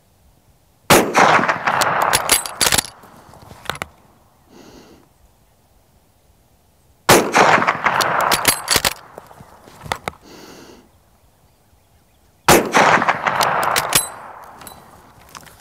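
11mm Mauser Model 71/84 bolt-action rifle fired three times, about six seconds apart, each shot loud with an echoing tail. After each shot come a few sharp metallic clacks as the bolt is worked to chamber the next round.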